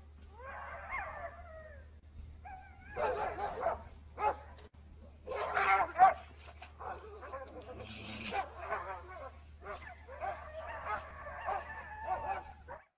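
A tethered sled dog whining and yipping while a polar bear wrestles with it in the snow, with louder, harsher outbursts about three and six seconds in. The sound cuts off abruptly just before the end.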